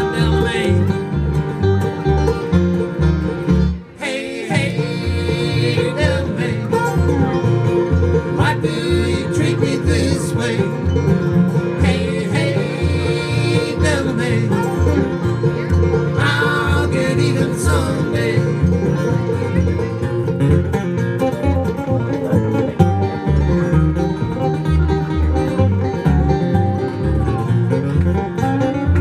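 Bluegrass string band playing live: banjo, guitar and dobro picking over a steady upright bass. There is a brief break in the playing about four seconds in.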